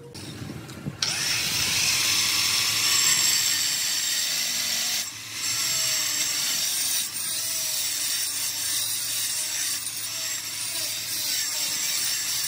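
Angle grinder with an abrasive disc grinding the edge of stone cladding tile, starting about a second in and running steadily, with a brief dip about halfway through as the disc eases off the stone.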